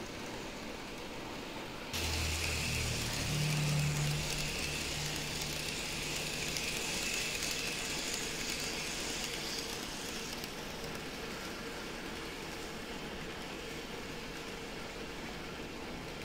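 Model container freight train, hauled by a C62 steam locomotive model, running past on the track: its motor hum and running noise come in suddenly about two seconds in, are loudest around four seconds, and die away by about ten seconds.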